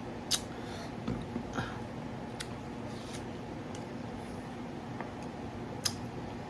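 Someone eating watermelon: a few short, crisp, wet clicks and crunches of biting and chewing, spread irregularly, the sharpest about a third of a second in and near the end, over a steady low room hum.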